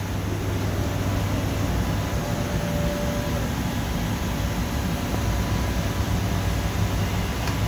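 Steady machine noise with a low hum from a Hwacheon G1 graphite machining center and its robot workpiece automation running, with a brief faint tone about three seconds in.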